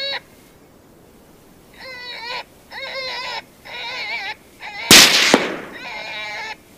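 A rifle shot at a coyote about five seconds in, loud and sharp with a short echoing tail, and a second shorter crack a moment after it. Around it, high wavering animal cries, each about half a second long, repeat about four times before the shot and once after.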